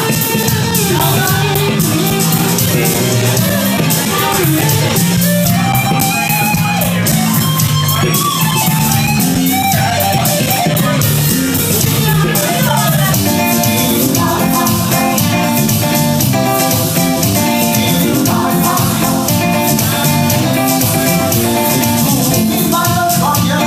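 Live band music: a Pearl drum kit, electric bass and electric guitar keep a steady groove while a melody line glides over them, turning to quick repeated notes about halfway through.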